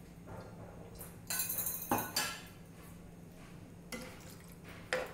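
Steel ladle and bowl clinking against a cooking pan a few times, with a short pour of water into the simmering curry about four seconds in.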